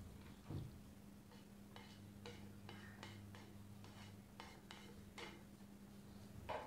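Faint, irregular light ticking, about three ticks a second, over a low steady hum, with a soft knock about half a second in.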